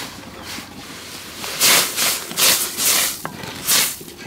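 Wooden spoon stirring boiling broth in a metal wok, with four loud hissing, splashing strokes in the second half.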